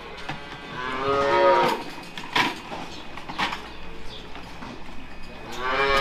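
Holstein calves bawling: one long call about a second in and another starting near the end, with a couple of sharp knocks between them.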